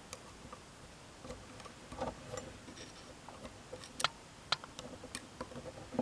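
Light, scattered clicks and taps of small metal door-handle parts being handled while an O-ring is worked down onto the handle shaft, with a few sharper clicks about four to five seconds in.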